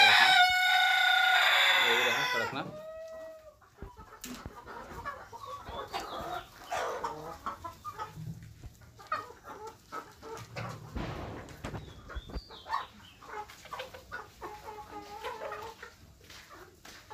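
A rooster crows loudly once at the start, one long call of about three seconds that sinks in pitch as it ends, then a flock of desi chickens keeps up a busy clucking with many short taps.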